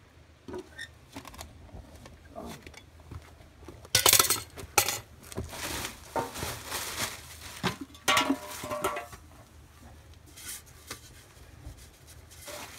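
Long metal tongs knocking and clinking against a steel pot as a red-hot raku piece is set down into sawdust. The clatter is loudest about four seconds in, with more ringing metallic clinks around eight seconds.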